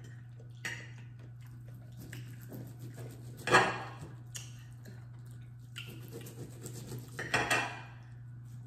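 Knife and fork scraping and clinking against a platter while food is cut, with a few louder clatters, the loudest about three and a half seconds in and another cluster near the end. A steady low hum runs underneath.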